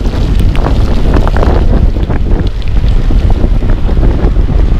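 Wind buffeting the microphone: a loud, steady low rumble with scattered sharp ticks through it.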